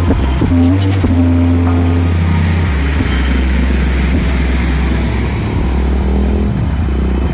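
Road traffic passing close by: trucks and a motorcycle driving past, with a heavy, steady low engine rumble.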